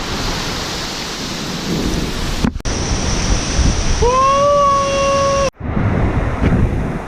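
Loud, steady rush of a waterfall and ocean surf, with wind buffeting the microphone. The sound cuts off abruptly twice, and between the cuts a man lets out one long shouted "woo".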